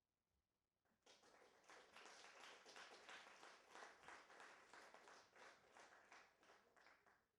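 Faint applause from a small audience, starting abruptly about a second in and dying away near the end.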